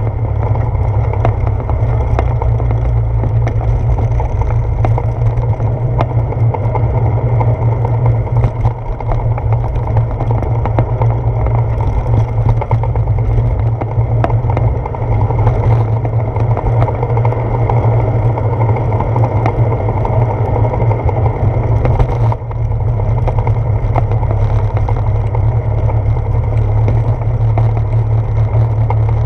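Steady low rumble of wind buffeting and riding vibration on a handlebar-mounted GoPro Hero 4 on a moving bicycle, with many small clicks and rattles throughout.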